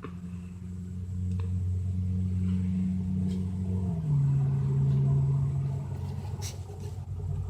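A low, steady engine-like hum that steps down in pitch about four seconds in and gets a little louder, with a few faint clicks.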